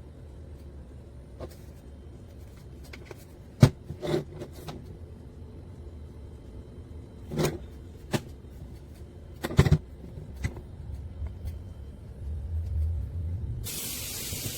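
A handful of sharp knocks and clicks, like objects being set down and handled on a countertop, over a low steady hum. About a second before the end, a steady rushing hiss starts, typical of water running or pouring.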